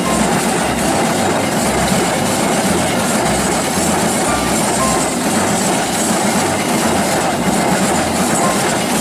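Train running along the track: a loud, steady rumble and rattle of wheels on rails, with a low pulse repeating under it.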